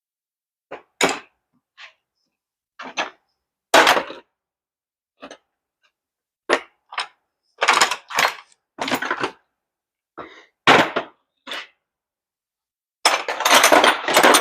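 Hand tools and metal steering parts clinking and knocking irregularly as they are handled, with a longer metallic clatter near the end.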